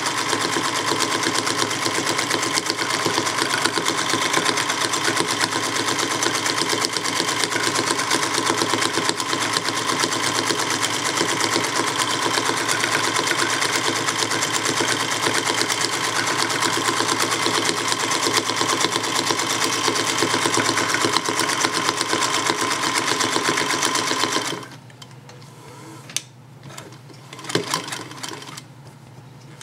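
Singer 221 Featherweight sewing machine running at a steady fast stitch, its motor and needle mechanism chattering evenly. It stops abruptly about twenty-four seconds in, followed by a few clicks.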